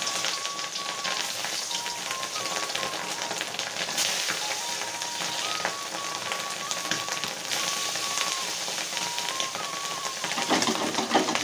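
Pieces of steamed fish roe frying in hot vegetable oil in an iron wok: a steady crackling sizzle dense with small pops as the roe spatters in the oil. The crackle grows louder for a moment near the end.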